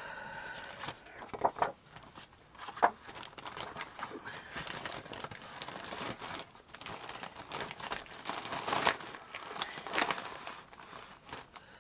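Paper scrapbooking-kit pieces and their packaging rustling and crinkling as they are handled and sorted, with sharp crackles now and then.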